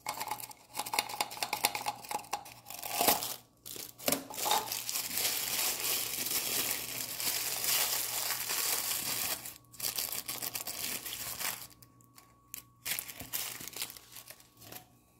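Crinkled purple paper wrapper being crumpled and pulled open by hand, a dense crinkling and crackling that thins to scattered crackles in the last few seconds.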